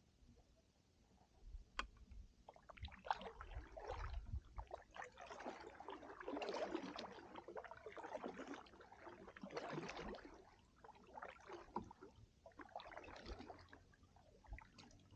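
Kayak paddle strokes in calm water: faint, repeated swishes and splashes of the blades, one every second or two, starting a few seconds in.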